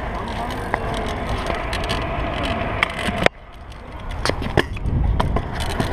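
Stunt scooter wheels rolling on skatepark concrete, with a sharp clack about three seconds in and a few more knocks of the scooter on the concrete near the end.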